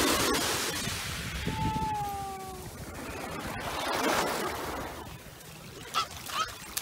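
Small waves washing up on a sandy beach, the wash fading over the first couple of seconds and swelling again about four seconds in. A short falling tone sounds about two seconds in.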